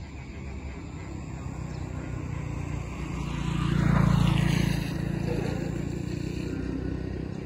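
An engine passing by, growing to its loudest about four seconds in and then fading back to a steady low hum.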